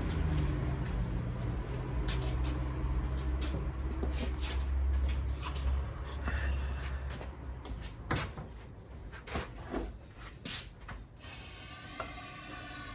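Scattered clicks and knocks of metal parts and tools being handled, over a low hum that fades out about halfway through.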